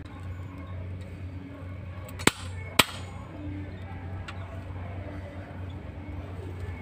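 Two sharp clicks about half a second apart, a little over two seconds in, as the manual transfer switch's breakers and lug connections are handled, over a steady low hum.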